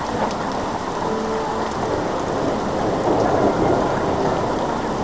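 Steady rain falling, with thunder rumbling. The sound grows a little louder in the second half.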